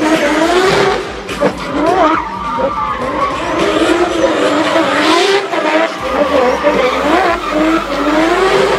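Drift car's engine revving hard, its pitch constantly rising and falling as the throttle is worked mid-slide, with tyre squeal from the sliding tyres.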